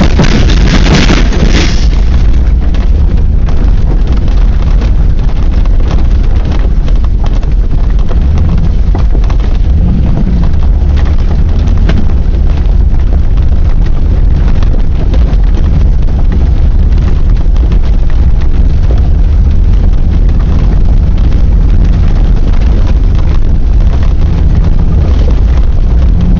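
Ford Bronco driving over a gravel rail bed: a loud, distorted low rumble of engine and tyres, peppered with constant small jolts and knocks. A louder rush of wind noise fills the first couple of seconds.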